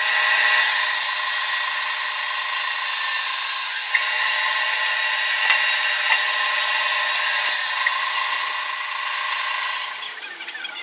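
Band saw cutting through a thick wooden board: a steady whine of motor and blade over the rasp of the cut, which dies away near the end.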